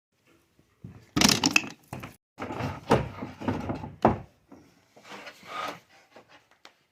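Wooden parts of an old pipe organ being knocked and pulled loose by hand: an irregular series of thuds, knocks and clatter of wood starting about a second in.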